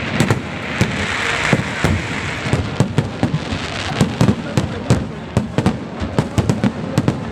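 Fireworks display: a dense, irregular run of bangs and pops, several a second, with a crackling hiss of sparkling shells about a second in.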